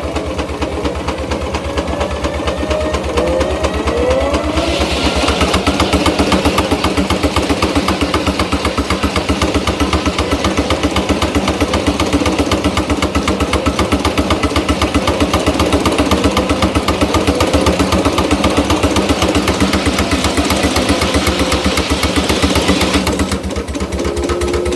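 Case portable steam engine running a sawmill, with a fast, steady beat. From about five seconds in until near the end a loud hiss is added over the beat, and a whine glides in pitch just before it starts.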